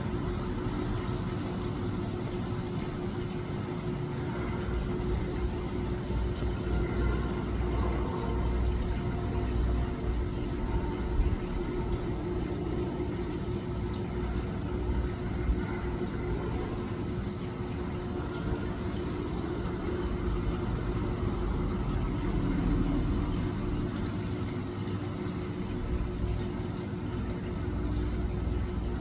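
Steady low mechanical rumble with a constant hum, like traffic or a machine running, with a couple of brief knocks about eleven and fifteen seconds in.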